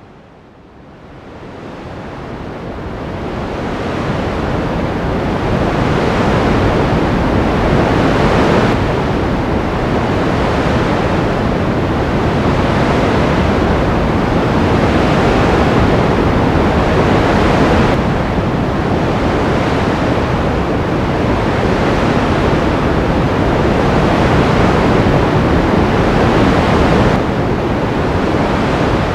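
Ocean surf: a steady wash of breaking waves that fades in over the first few seconds, then swells and eases every few seconds.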